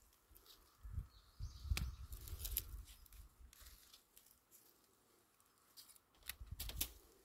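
Pruning shears snipping young hardy kiwi shoots, a few faint sharp clicks about two seconds in and again near the end, with rustling of leaves and gloved hands handling the stems.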